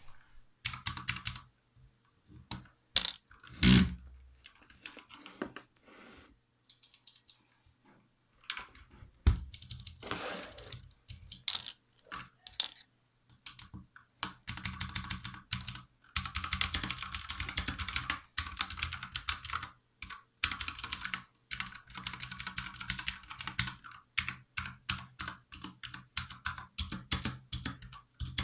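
Typing on a Redragon Usas mechanical keyboard with clicky Outemu Blue switches, each keystroke a sharp click. Presses are scattered and uneven at first, then become rapid, continuous typing about halfway through.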